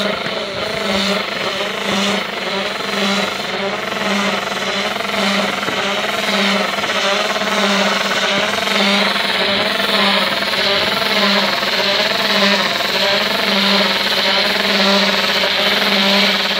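A machine running steadily, with an even low pulse about three times every two seconds and a wavering whine above it.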